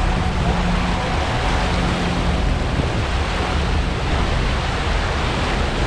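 A tour boat under way: its engine runs with a steady low drone under the rushing of its churning wake, with wind across the microphone.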